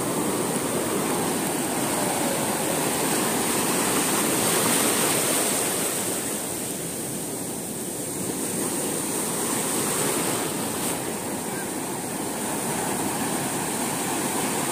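Sea surf breaking and washing over a sandy beach: a steady rush of foaming water that swells and ebbs slowly as the waves come in.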